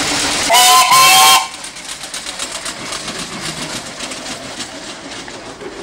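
Steam whistle on a showman's traction engine blown in two short, loud blasts, the pitch rising slightly at the start. Steady steam and running noise of the engine surrounds it, quieter after the whistle as the engine passes close by.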